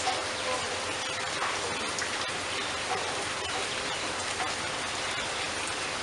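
Steady rain falling: an even hiss with scattered ticks of individual drops.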